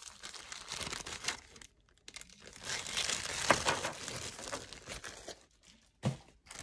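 Thin plastic zip-top bag crinkling as it is handled and jewelry is packed into it. The rustle pauses briefly about two seconds in, then comes back louder with a sharp click about three and a half seconds in.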